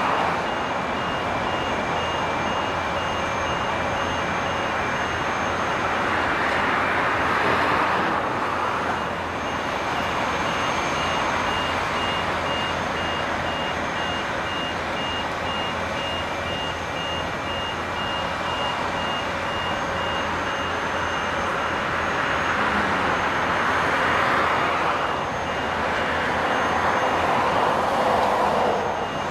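Construction-site machinery noise with a warning beeper pulsing evenly at a high pitch. The steady background swells twice, about a quarter of the way in and again near the end.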